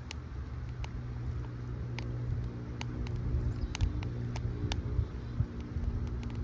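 A low, steady engine-like hum runs throughout, with a few scattered sharp crackles, likely sticks burning in a small wood-burning camp stove.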